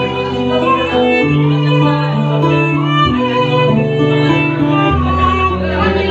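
Violin playing a melody of long bowed notes over acoustic guitar accompaniment, an instrumental passage with no singing.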